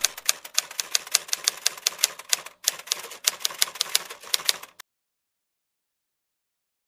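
Typewriter sound effect: rapid, even key clacks, about five a second, stopping abruptly about five seconds in.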